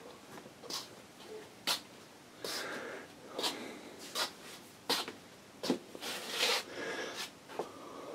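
A person walking in a small room: irregular scuffing steps, knocks and rustles, with a longer rustle about six seconds in.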